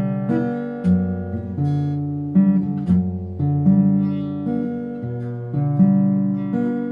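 Acoustic guitar played solo: chords and bass notes struck one after another and left to ring out and fade, with the chord changing every second or so.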